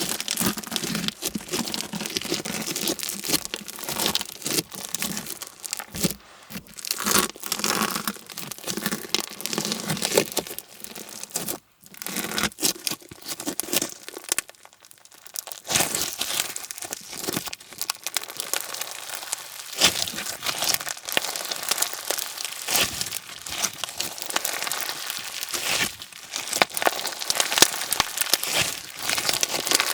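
Clear slime full of slushie beads (small foam pellets) being squeezed, stretched and pressed, giving dense irregular crackling and popping with brief pauses.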